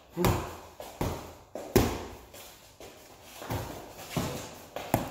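Boxing gloves striking gloves and headgear in light sparring: a series of irregular sharp slaps, the loudest a little under two seconds in.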